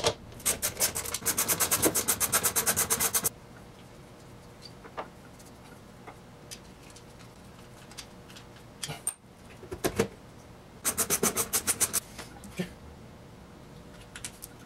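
Ratchet wrench clicking in quick, even runs while the ignition coil is moved and fastened on its bracket. A long run of about nine clicks a second stops abruptly near the three-second mark, a few single clicks and knocks follow, and a shorter run comes about eleven seconds in.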